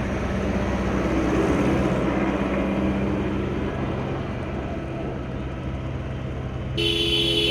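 Street traffic with a vehicle engine running steadily, and a vehicle horn honking near the end.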